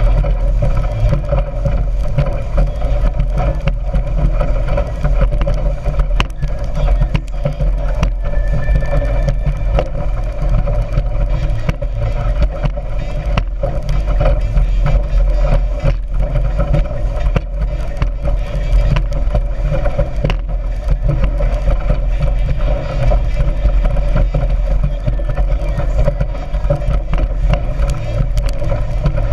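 Motorboat engine running steadily at speed, a loud constant drone with a rushing noise over it.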